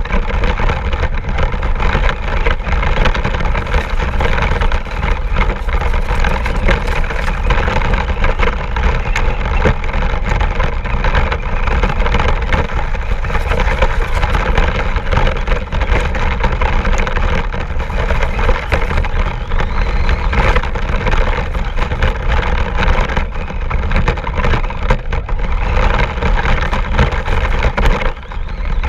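RC car driving, heard from a GoPro riding on it: steady motor and drivetrain noise mixed with constant rattling and knocks as it runs over rough ground. It briefly drops in level near the end.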